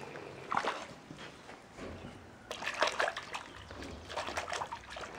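Wool being washed by hand in a bowl of water: hands slosh and squeeze the wet fleece, giving irregular splashes in a few bursts.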